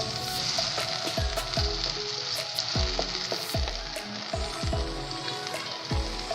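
Small boneless chicken pieces sizzling in a frying pan with soy sauce and chili sauce while they are stirred, a steady hiss of frying.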